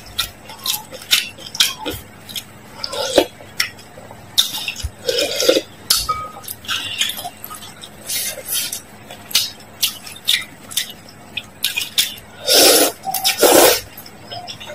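A metal spoon and chopsticks clinking against a glass bowl of noodle soup in many short, sharp taps. Near the end come two loud slurps as a mouthful of noodles is sucked in.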